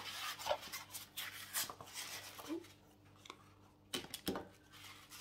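Small printed cardboard box being opened and handled by hand: irregular rustling and scraping of card, with several sharp clicks and knocks, the loudest about four seconds in.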